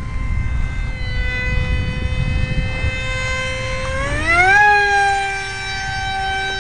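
Electric motor of a scratch-built RC F-18 jet whining steadily at low throttle, then rising sharply in pitch about four seconds in as the throttle is opened, and holding the higher pitch as the plane passes overhead.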